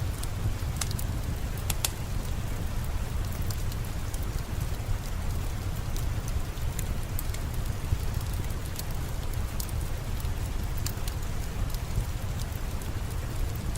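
Steady rain falling, with a low rumble underneath, mixed with a crackling fireplace whose sharp pops and ticks come at irregular moments.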